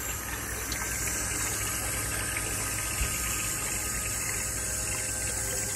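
Water pouring from a plastic container into a bucket, splashing steadily, over the low hum of a bilge pump submerged in the bucket as it pumps the water up a hose into the fresh water tank.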